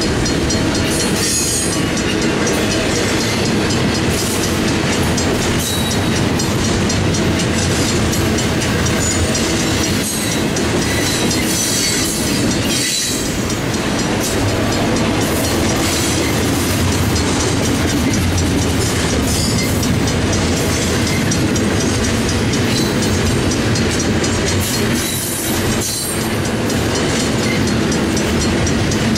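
Double-stack intermodal freight cars rolling past a grade crossing, their steel wheels clattering steadily over the rails. The crossing's mechanical bell rings throughout.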